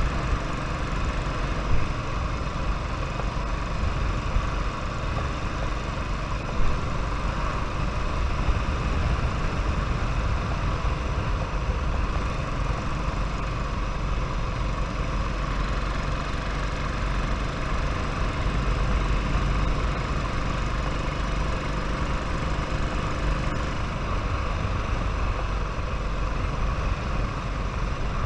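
Royal Enfield motorcycle running steadily while being ridden, with two brief knocks about 2 and 6.5 seconds in.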